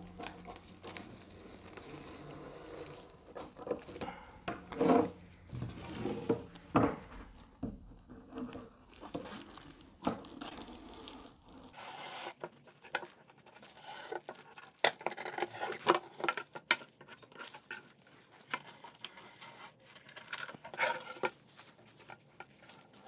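Thin plastic wrap on a canvas being cut along its edge with scissors and peeled back: irregular crinkling and rustling of the film with scattered scissor snips.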